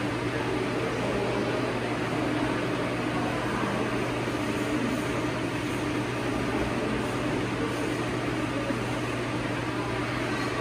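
Steady whir of electric fans blowing air, with a constant low hum underneath.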